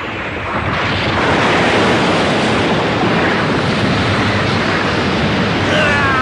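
Storm sound effect of strong wind and heavy rain, a loud steady rush that swells about a second in. A wavering high-pitched cry joins near the end.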